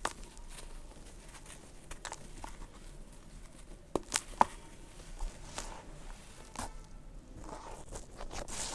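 Lumps of red dirt crumbling and breaking onto a floor: irregular small cracks and crackles, with a few sharper snaps around the middle.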